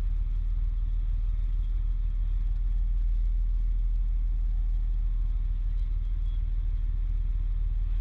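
Fire truck's diesel engine running steadily, a constant low rumble with no change in pitch or level, as it does while powering the extended aerial ladder.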